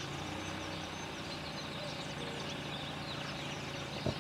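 VAZ-2101 Zhiguli's four-cylinder engine running slowly as the car rolls up and stops, with birds chirping around it. Two or three sharp clicks come near the end.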